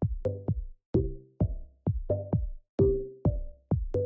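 Music: an electronic track with a steady drum-machine beat and bass notes.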